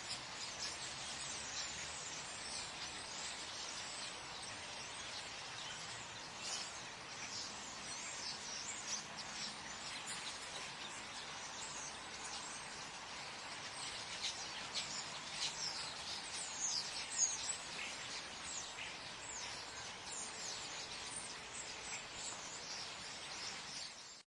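Many birds chirping in trees: a dense scatter of short, high, quick falling chirps over a steady background hiss. It stops abruptly just before the end.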